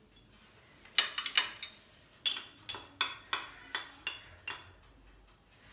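Sharp clinking taps of kitchen utensils while flour and cornstarch are sifted through a sieve over a bowl. A quick cluster of taps comes about a second in, then single taps about two or three a second for a few seconds.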